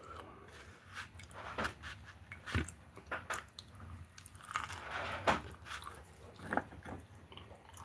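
A person biting into and chewing a spicy chicken burger close to the microphone, heard as scattered short mouth clicks and smacks.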